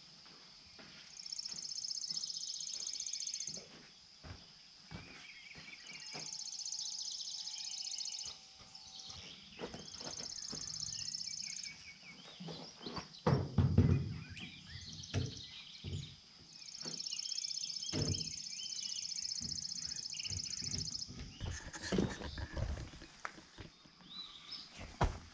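Insects outside buzz in repeated phrases of a few seconds each, high and finely pulsed. Over them come scattered knocks and heavy thumps as a large plywood door is handled and set against the wooden coop frame, loudest about halfway through.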